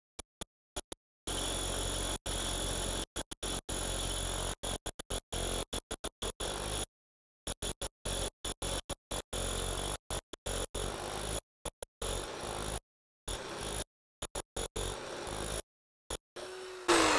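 DeWalt D25614 SDS Max rotary hammer running a 4-inch core bit into concrete, its motor whine and hammering cutting in and out in choppy bursts: a pulsing that the user puts down to the tool's Perform & Protect mode. Near the end the motor winds down.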